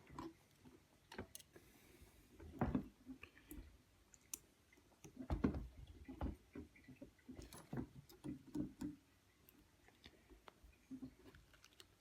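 Irregular clicks and knocks of small hardware being handled as the Y-axis stepper motor is mounted on a Prusa i3 3D printer frame, with firmer knocks about two and a half and five and a half seconds in.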